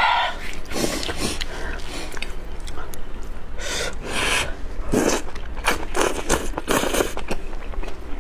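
Someone slurping thick sweet-potato glass noodles from hot-and-sour soup, several noisy sucking slurps with chewing between them.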